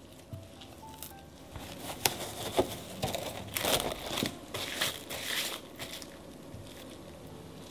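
Plastic cling wrap crinkling as it is pulled, torn and stretched over a glass mixing bowl, with a couple of sharp snaps about two seconds in.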